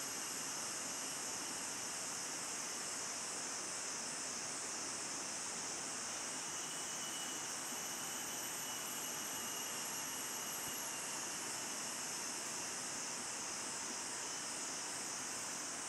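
Steady, high-pitched insect chorus: a continuous shrill hiss that does not change.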